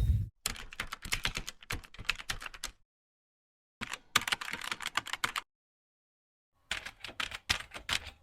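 AI-generated sound effect of typing on a computer keyboard: three bursts of rapid key clicks, each about one and a half to two and a half seconds long, with dead silence between them.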